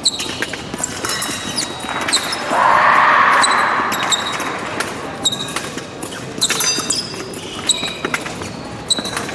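Épée bout in action: a run of sharp metallic clicks and taps, several with a brief high ring, as blades meet and feet stamp on the piste. About two and a half seconds in, a louder rushing burst lasts about a second.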